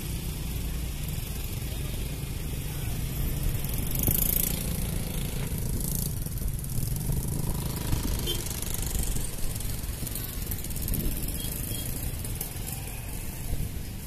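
Steady outdoor traffic rumble and hiss, swelling briefly about four seconds in.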